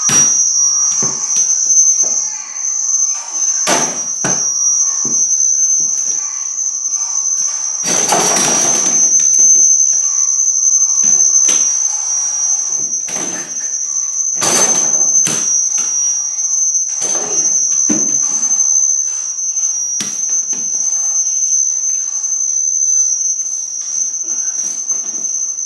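Irregular knocks and thuds of a small ball hitting a door-mounted mini basketball hoop, the door and the floor, with a longer clattering stretch about eight seconds in and another about fourteen seconds in. A steady high-pitched whine runs underneath throughout.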